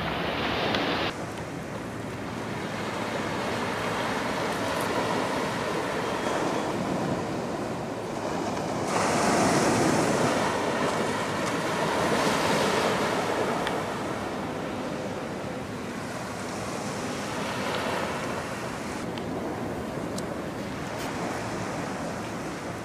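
Small sea waves washing up on a sandy beach, the surf swelling louder around the middle and easing off again.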